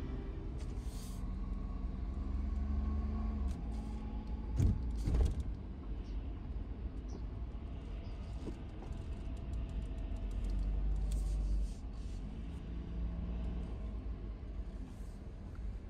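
Honda Vamos kei van's small three-cylinder engine and road noise heard from inside the cabin while driving, a steady low rumble. A couple of louder bumps or knocks come about five seconds in.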